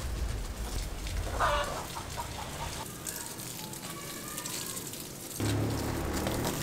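Chickens clucking, with a short falling call about one and a half seconds in and fainter calls after it. A low droning hum starts about two-thirds of the way through.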